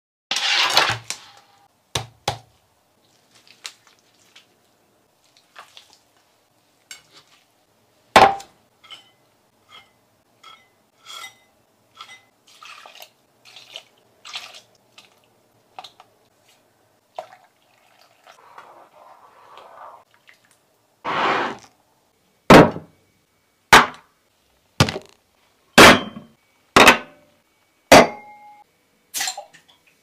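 Clinks and knocks of dishes, utensils and glassware: separate sharp strikes, some ringing briefly, with a short hiss in the middle. Near the end a run of louder strikes comes about once a second.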